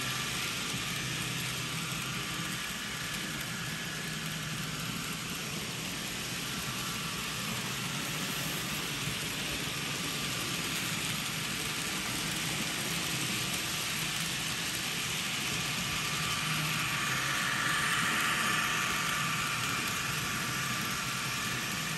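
N scale electric model trains running around their track loops: a steady whir of small motors and metal wheels rolling on the rails. It grows louder for a couple of seconds near the end.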